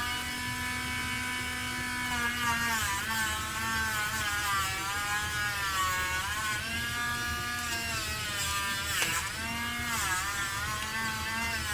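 Battery-powered dog nail grinder running with a steady high whine. Its pitch dips briefly several times as the spinning grinding drum is pressed against a dog's toenail and the motor is loaded.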